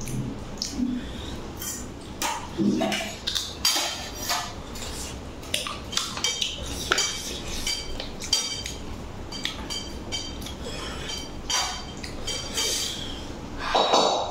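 Fingers mixing and scraping rice and chicken curry across a stainless steel plate: irregular short scrapes and clinks, some leaving a brief metallic ring. A short vocal sound near the end.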